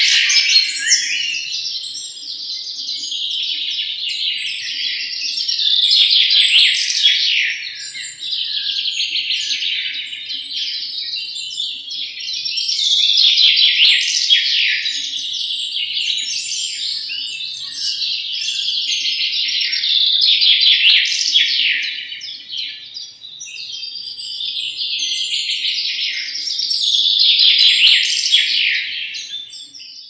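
European goldfinches singing: a continuous fast twittering song that swells louder about every seven seconds.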